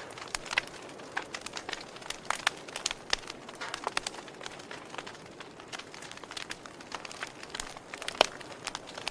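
Wood fire crackling: irregular sharp pops and snaps over a steady low hiss, with one louder pop near the end.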